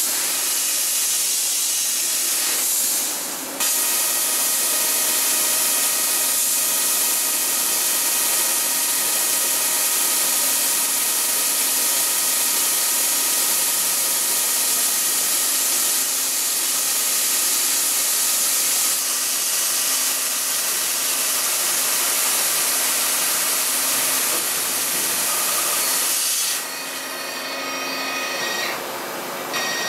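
Vertical turning center's live-tool spindle tapping and then drilling carbon steel under a heavy flood of coolant: a loud, steady spray hiss over steady whining tones from the machine, with a brief lull about three seconds in. Near the end the spray hiss falls away and the machine's whine is left.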